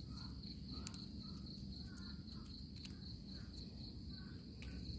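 Crickets trilling steadily in a high, finely pulsing tone, with a fainter lower chirp repeating through it and a few soft clicks.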